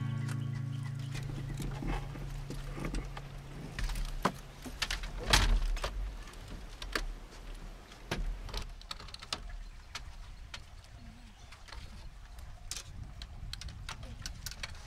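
Scattered clicks, rattles and knocks of things being handled, with one louder knock about five seconds in. Background music fades out over the first couple of seconds.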